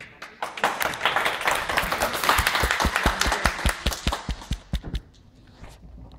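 Audience applauding, with one person clapping close to the microphone about five times a second in the middle part. The clapping stops about five seconds in.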